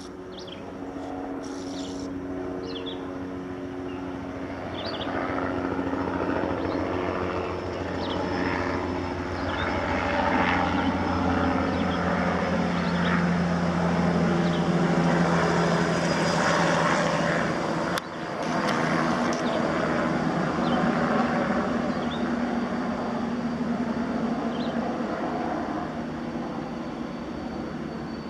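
A steady engine drone with several tones that slowly shift in pitch, growing louder toward the middle, with short high chirps over it. It breaks off abruptly about eighteen seconds in, then resumes.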